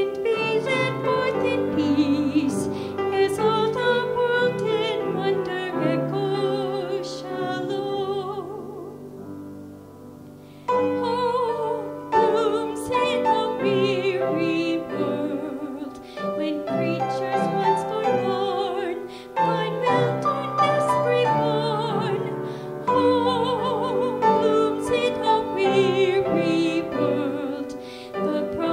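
A hymn sung by a voice with wide vibrato, with piano accompaniment. About eight seconds in, the music fades to a brief quiet pause, then comes back strongly at the refrain.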